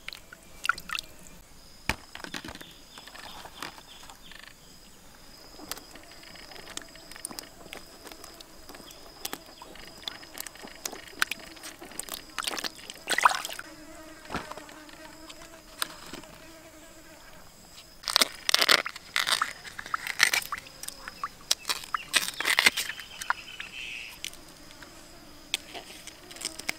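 Steady high-pitched insect drone, with a buzzing like a fly, under intermittent rustling and knocking as produce is handled in a woven basket. The handling noises come in bursts, loudest about halfway through and in a run of bursts later on.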